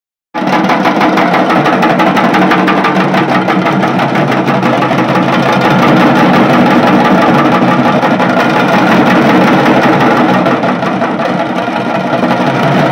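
Dhol tasha band playing: a tasha rattling out rapid rolls over several large stick-beaten dhol drums, a loud, dense wall of strokes. It starts suddenly just after the beginning.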